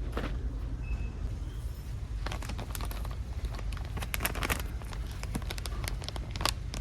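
Rapid clicks and crinkling rustles, thickest from about two to five seconds in with one more near the end, over a steady low hum.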